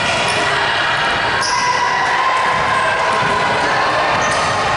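Basketball being dribbled on a hardwood gym floor, over a steady background of noise in the hall.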